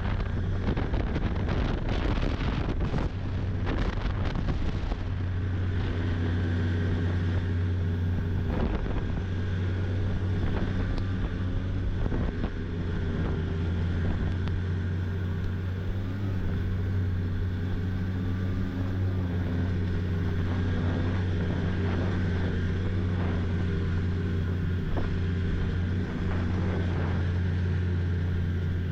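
Snowmobile engine running at a steady speed while riding, with wind noise on the microphone. The first few seconds are rougher, with several knocks, before the engine settles into an even drone.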